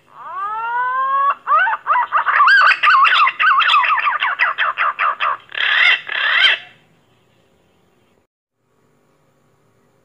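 Pink-necked green pigeon (punai gading) calling: a rising whistle, then a fast run of wavering whistled notes, ending with two louder notes; the call stops about seven seconds in.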